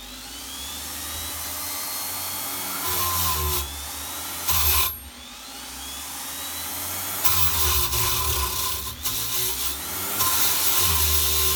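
Parkside PGS 500 A1 electric die grinder spinning a brass wire wheel brush against a welded steel tube, scrubbing off welding slag. The motor's whine builds up at the start, and the brush scrapes loudly in bursts as it is pressed onto the metal, with a brief dip about five seconds in.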